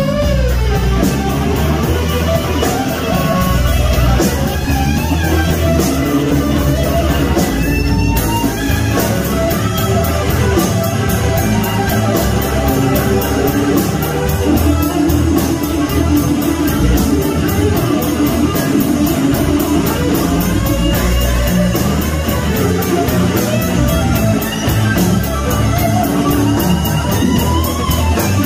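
Live band playing: electric guitar over electric bass and a drum kit, with the cymbals ticking out a steady beat.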